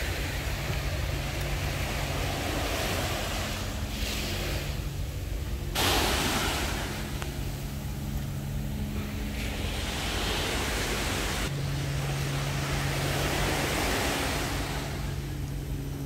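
Small sea waves washing onto a sandy shore, surging and fading every few seconds, with wind on the microphone; a louder surge comes about six seconds in. A faint steady low hum runs underneath.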